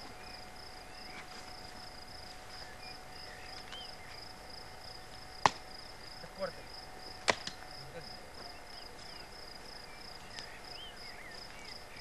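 Crickets chirping in a steady, fast pulsing trill. Two sharp snaps, about two seconds apart near the middle, as dry branches are broken off for sticks.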